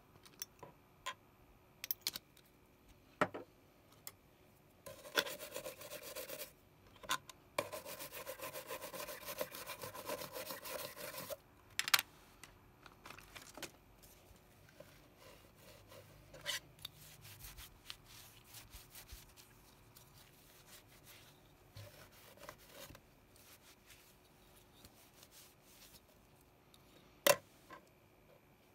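A small stiff brush scrubbing a circuit board to clear flux residue from a hand-soldered TSSOP chip, in a short burst and then a longer one of about three and a half seconds. Sharp clicks and taps of the board being handled come between, the loudest near the end.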